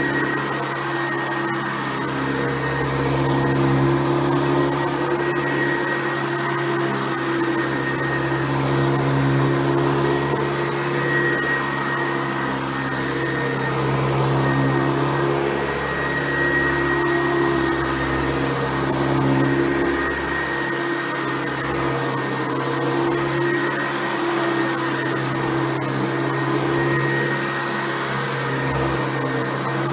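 Hoover Convertible U4349 upright vacuum cleaner running steadily, its hum swelling and easing slightly every few seconds.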